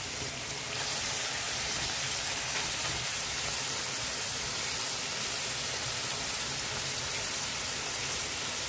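Vegetables and sauce sizzling in a hot pot, a steady frying hiss that grows louder about a second in as freshly washed, wet spinach leaves go in.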